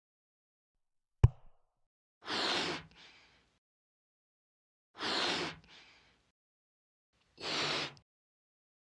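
Sound effects of a balloon letter being blown up: a single sharp knock about a second in, then three breathy puffs of air, each about half a second long and roughly two and a half seconds apart, as the letter inflates.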